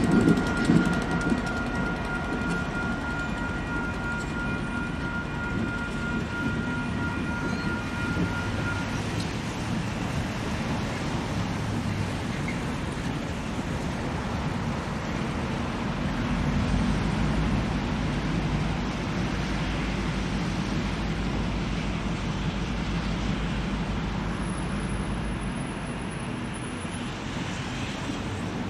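Diesel train running by, a steady rumble of engine and rolling stock on the rails. A few faint steady tones fade out about nine seconds in, and the low engine rumble deepens about sixteen seconds in.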